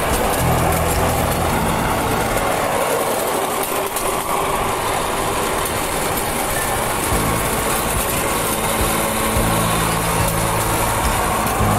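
Vehicle engine running as it drives along, with steady road and wind noise; its low hum comes and goes as the engine speed changes.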